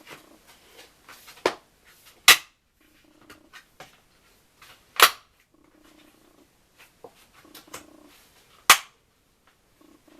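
Sharp snaps of parts being pushed and clicked into place by hand during assembly: three loud snaps a few seconds apart, with smaller clicks and knocks between.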